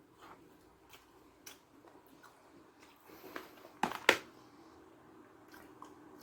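Close-up mouth sounds of someone eating soft durian flesh: scattered soft wet smacks and clicks, with two louder sharp clicks about four seconds in.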